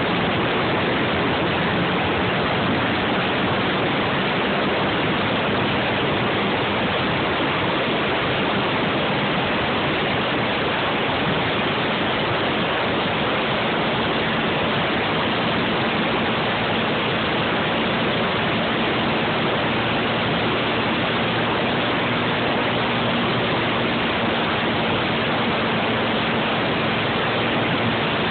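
Steady rushing wind and road noise from riding a Suzuki Eiger quad ATV at speed, with the ATV's engine hum faintly underneath. The hum rises a little in pitch about halfway through.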